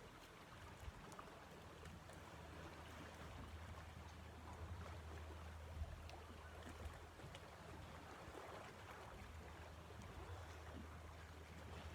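Faint outdoor ambience with a low steady hum and a soft even hiss, broken by a few small ticks.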